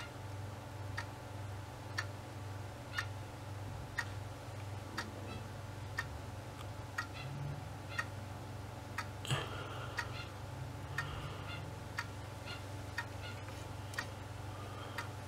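A clock ticking about once a second over a low steady hum.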